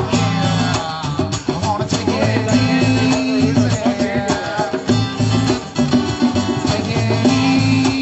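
Band music with drums, a repeating bass line and a melody line over it.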